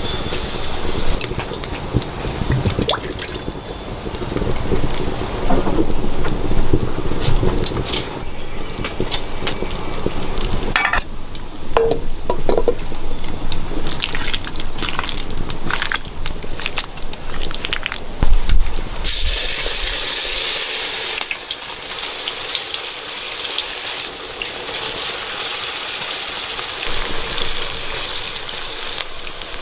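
Wet squelching and dripping as masala-coated chicken pieces are squeezed and turned by hand in a steel bowl. About two-thirds of the way through, a steady frying sizzle starts abruptly and carries on.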